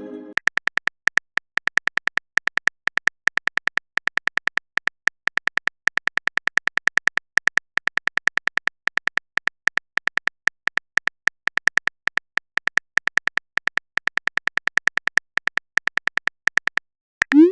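Typing sound effect of a texting-story app: a long rapid run of short, sharp, bright clicks, several a second, as a message is typed out. A short rising blip comes at the very end.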